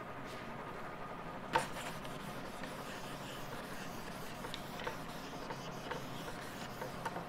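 Handheld whiteboard eraser rubbing across a whiteboard, wiping off marker writing. The rubbing is steady, with a few small ticks and one sharper tap about a second and a half in.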